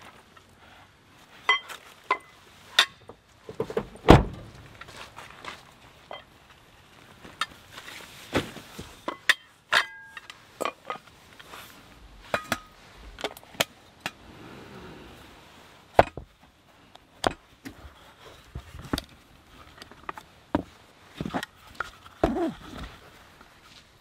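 Camp cookware and gear being handled and set down: scattered clicks, knocks and metal clinks. A heavy thump comes about four seconds in, and a short metallic ring near ten seconds.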